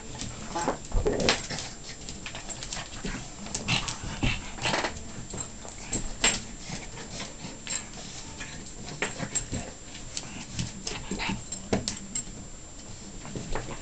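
A Pekingese and a golden retriever play-fighting: short, irregular dog vocalisations mixed with scuffling, in many brief bursts.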